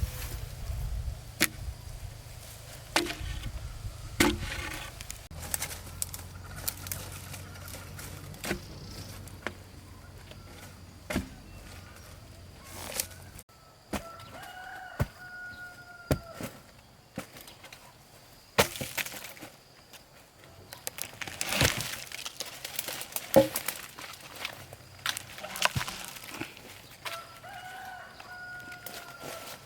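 Scattered sharp knocks and cracks, like wood being handled and broken, with a rooster crowing twice, about halfway through and near the end.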